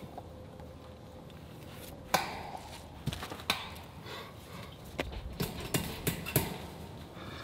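Claw hammer striking at the base of a wooden fence post while woven wire fencing is fastened to it: one sharp strike about two seconds in, then a run of about seven lighter knocks from about three seconds in to near the end.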